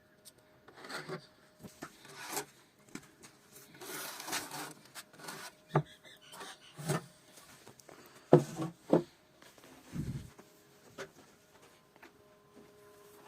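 Hand work on hardwood: irregular scraping and rubbing of wood, with a few sharp wooden knocks, the loudest two close together past the middle.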